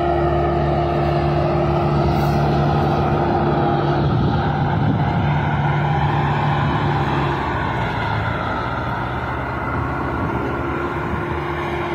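Diesel tractor engines running steadily under load while pulling tillage implements through dry soil, a continuous drone that eases slightly about seven seconds in.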